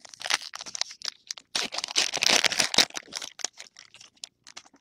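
Foil wrapper of a trading-card pack being torn open and crinkled in the hands, a run of quick crackles that is densest about two seconds in.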